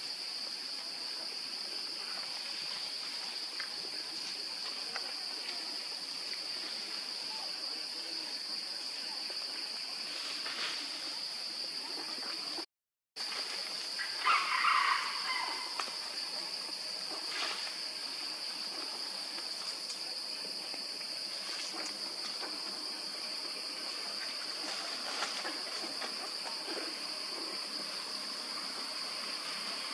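Forest ambience: a steady high-pitched insect drone runs throughout, and a short, higher, louder burst of calling stands out about 14 seconds in. The sound drops out completely for a moment just before that.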